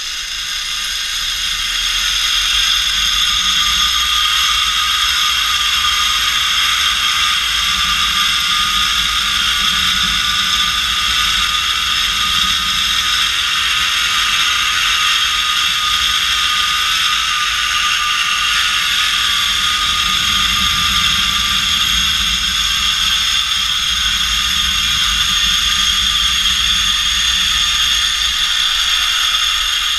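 Zip-line trolley's pulley wheels running fast along the steel cable: a loud, steady whine with several high tones. It builds over the first couple of seconds as the run picks up speed, with a low rumble underneath.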